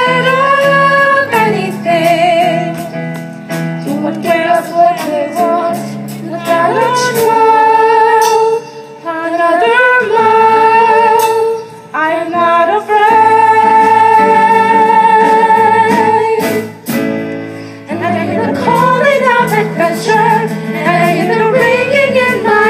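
Female voices singing a musical-theatre song in long held notes, over an instrumental accompaniment, with brief dips between phrases.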